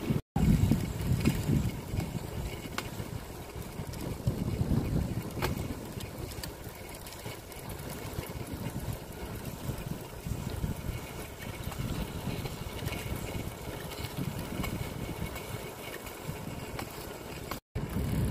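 Gusty low rumble of wind and road noise on a microphone moving along with cyclists. The sound cuts out briefly twice, just after the start and near the end.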